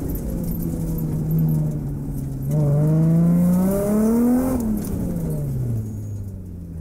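BMW E36 M3's straight-six engine under acceleration: the pitch sags, then climbs steadily for about two seconds before falling away as the driver lifts, and the sound fades near the end.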